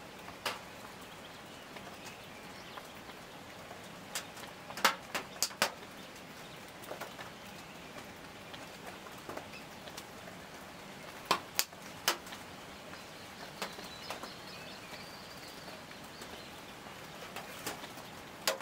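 Quiet forest ambience with a steady hiss, broken by scattered sharp taps and clacks: a quick cluster about five seconds in and another few around eleven to twelve seconds. A faint thin high call sounds about fourteen seconds in.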